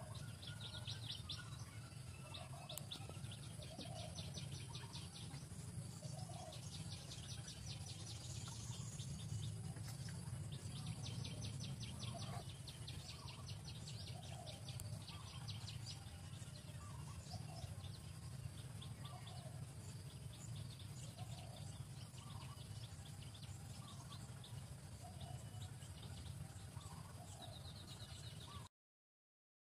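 Wild birds trilling and chirping, with short lower calls repeating about once a second, over a steady low hum. The sound cuts off suddenly near the end.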